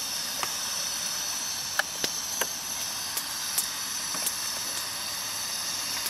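Portable gas camping stove burner hissing steadily under a double teapot, with a few faint clicks.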